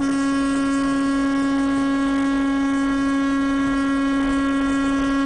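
Semi truck's horn held in one long steady blast of about five seconds, starting and stopping abruptly: a warning at a tractor-trailer merging into its lane.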